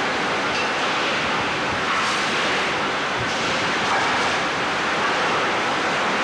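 Steel rolling mill at work: a steady rushing hiss of cooling water spraying onto the rolls and the red-hot bar, over the running machinery.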